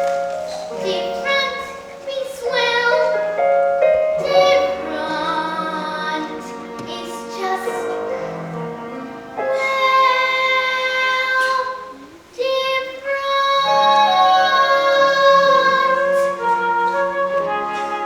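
A child singing to an instrumental accompaniment, holding long notes near the end of the song, with a brief dip about two-thirds of the way through.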